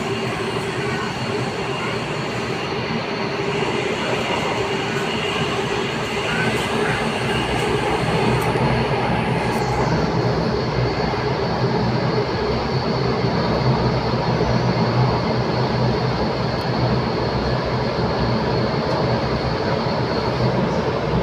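Interior of a C951 Downtown Line metro train running through the tunnel between stations: a steady rumble of wheels and running gear with a thin, steady high whine. It gets a little louder about eight seconds in.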